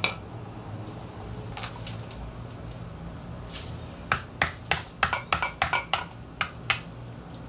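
Claw hammer striking the handle of a screwdriver driven into a coconut, punching a hole through the shell. A couple of single knocks come first, then a quick run of about a dozen blows, roughly four a second, in the second half.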